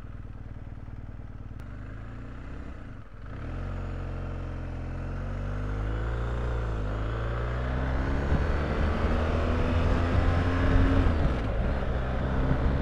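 BMW R1250GS boxer-twin motorcycle engine idling for about three seconds, then pulling away and accelerating, its note rising and getting louder with breaks at gear changes.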